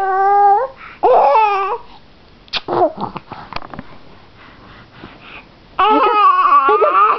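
A baby babbling and laughing in high-pitched, wavering squeals, with a quieter stretch in the middle and a fresh run of laughter starting about six seconds in.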